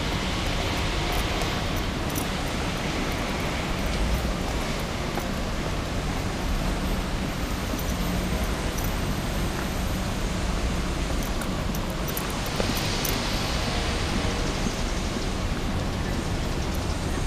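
Steady outdoor noise, mostly wind rumbling on a moving microphone, with two brief swells of hiss, one at the start and one about three-quarters through.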